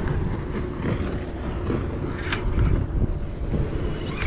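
Wind buffeting the microphone with a steady low rumble, and a brief knock or rattle about two seconds in as the rod and spinning reel are handled.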